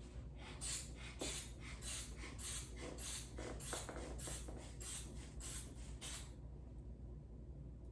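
Rubber hand bulb of a manual blood pressure cuff being squeezed about ten times in an even rhythm, each squeeze a short airy hiss as the cuff is pumped up for a standing blood pressure reading; the pumping stops about six seconds in.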